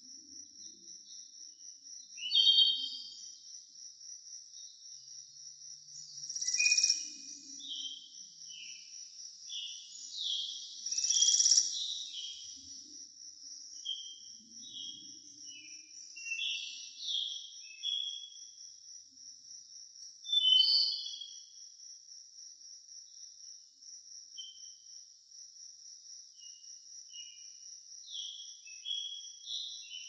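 An insect's steady, high-pitched pulsing trill, with many short bird chirps scattered over it and a few louder calls.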